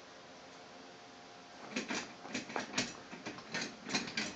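A rapid, irregular run of scratching and scuffing starting about two seconds in: a cat's paw and a person's fingers rubbing on a leather chair seat while the cat bats and grips at the hand.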